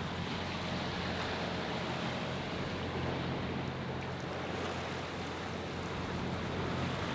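A sailboat's engine running steadily as the boat motors along, a low steady hum, with water rushing past the hull and wind.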